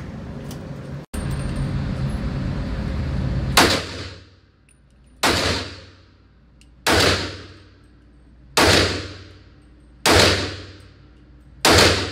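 Six handgun shots fired at a steady pace, about one every second and a half, starting a few seconds in. Each shot echoes briefly in the enclosed indoor range.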